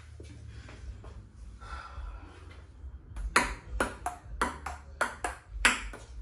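Ping pong rally played on a coffee table: the ball clicking sharply off the paddles and tabletop in quick succession, about four hits a second, starting about three seconds in after a low hum.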